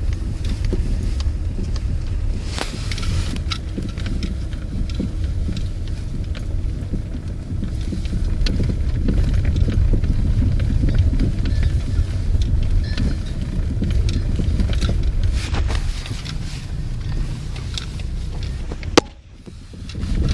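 Lada Priora on the move, with a steady low road rumble and irregular knocks from the suspension, the fault the car is being checked for. One loud, sharp knock comes near the end.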